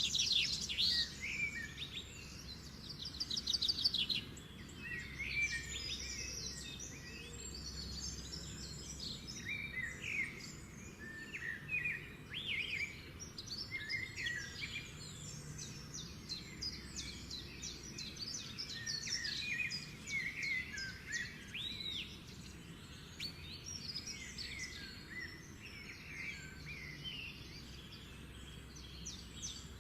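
Several birds chirping and calling over one another, a dense run of short chirps, with a fast trill of rapidly repeated notes about three seconds in.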